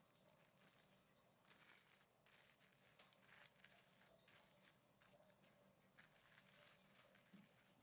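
Very faint crinkling and rustling of plastic cling film being stretched over a plate and pressed down around its rim, in several short bursts.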